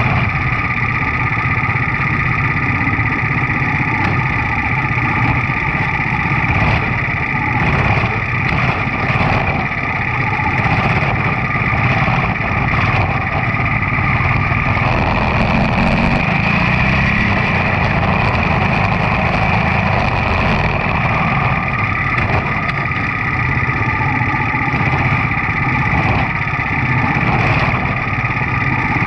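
Quarter midget race car's single-cylinder Briggs & Stratton Animal engine running at slow pace, heard from on board the car, with other quarter midget engines nearby. It picks up a little from about fifteen to twenty seconds in.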